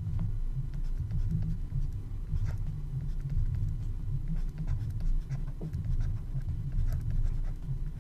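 Stylus writing on a drawing tablet: a steady low scratching with scattered light taps as the strokes are made.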